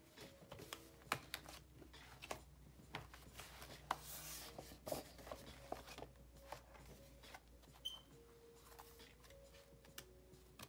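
Pages of a spiral-bound paper sketchbook handled and turned by hand: faint, scattered paper rustles and light taps over a low steady hum.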